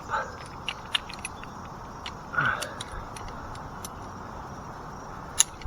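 Climbing spurs knocking into a hollow ash trunk and metal climbing hardware clinking as a tree climber ascends: scattered sharp clicks, one louder knock about five seconds in, over steady wind noise.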